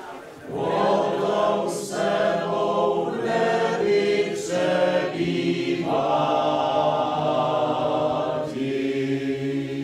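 A group of voices singing a slow song together in long, held phrases with short breaths between them.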